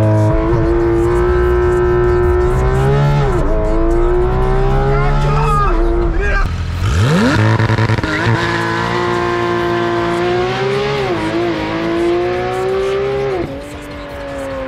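Porsche 911 GT3 RS's naturally aspirated 4.0-litre flat-six at high revs under hard acceleration. It climbs quickly to a high, near-steady note twice, about halfway through for the second time, with short dips in pitch in between, and drops away near the end.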